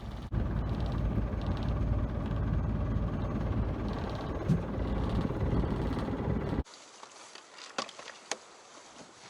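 Boat engine running under heavy wind buffeting on the microphone, a loud low rumble. About six and a half seconds in it cuts off abruptly to a much quieter scene with a few sharp light knocks.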